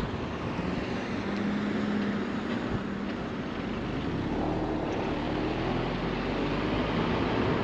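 Vauxhall Zafira driving at steady speed: steady road and tyre noise with the engine running underneath, its note rising a little about halfway through.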